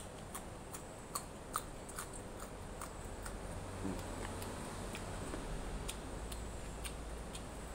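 Close-up eating sounds: people chewing with open-mouthed smacks and wet mouth clicks while eating grilled chicken and raw long beans by hand. Short, irregular smacks a few times a second, over a faint low hum.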